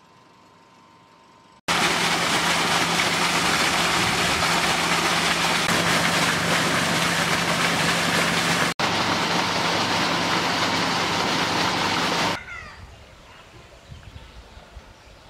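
Water gushing hard from a pipe outlet into a ditch, a loud steady rush over a steady low hum. It starts suddenly about two seconds in, drops out for an instant near the middle, and cuts off about twelve seconds in, leaving faint bird chirps.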